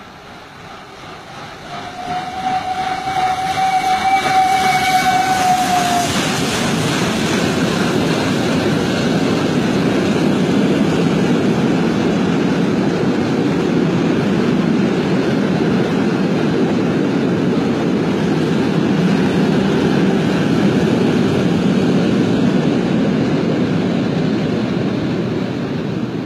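Steam train passing. Its whistle sounds once, for about four seconds, a couple of seconds in, and then comes a loud, steady rumble of the locomotive and its carriages rolling by.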